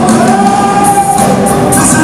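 Live gospel music at full volume: a band playing with several voices singing together, and percussion hits coming in about halfway through.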